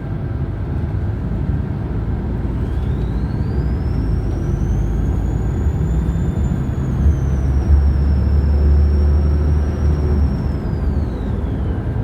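Bus running with a deep rumble and a thin, high-pitched whine. The whine comes in about two seconds in, rises in pitch, holds, then falls away near the end. The rumble grows heavier about two-thirds of the way through.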